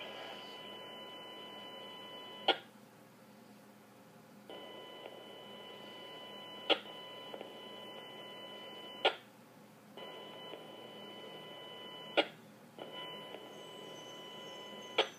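Police scanner radio feed played through a speaker: steady high-pitched tones that start and stop in stretches of a few seconds, with five sharp clicks.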